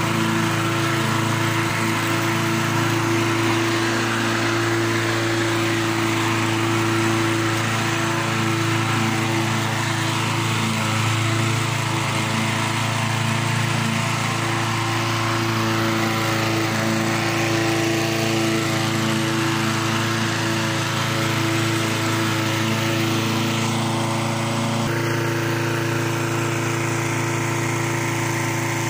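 Petrol rotary lawnmower's single-cylinder engine running steadily at constant speed while the mower is pushed across the lawn cutting grass.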